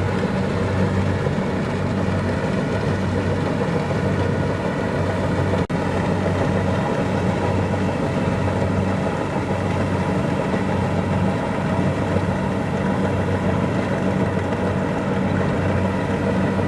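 Kubota DC-70 Plus combine harvester's diesel engine running steadily with a deep, even hum.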